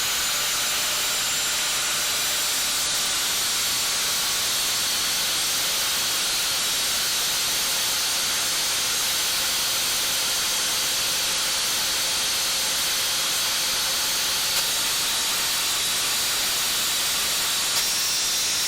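Angle grinder with a worn-down cutting disc cutting steadily through the steel of a seized suspension joint between a car's front lower control arm and vertical link: a continuous hissing grind with a faint high whine.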